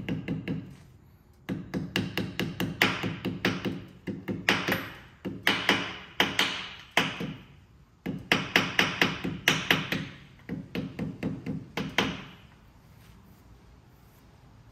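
Hammer tapping a metal seal driver to seat a new rear main seal in a VW Beetle engine's crankcase. The light taps come several a second, in runs with short pauses between them, and stop about twelve seconds in.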